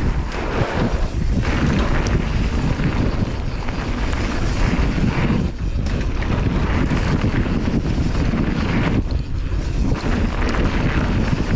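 Wind buffeting the microphone and the rumble of mountain bike tyres on a fast downhill dirt trail, the rolling noise thinning out briefly a few times.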